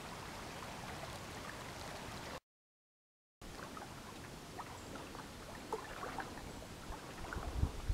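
Faint, steady rush of a shallow creek's water flowing over gravel, broken by about a second of dead silence. After the silence come small scattered ticks of water, and a few low bumps near the end.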